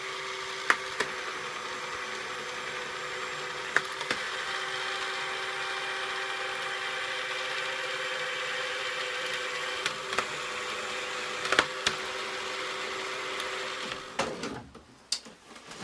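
Restored Tomy Armatron toy robot arm running, its single battery motor and gearbox whirring steadily, with sharp clicks here and there as the controls engage and shift its gears. The motor stops near the end.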